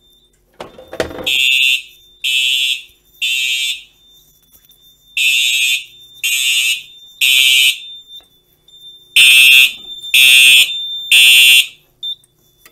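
Simplex SmartSync fire alarm horn strobes sounding the temporal-3 evacuation pattern, three short blasts then a pause, repeated three times, as the fire alarm panel goes into alarm from a manual pull station. A clatter of the pull station being pushed comes just before the first blast, and a steady high tone carries on between the blasts.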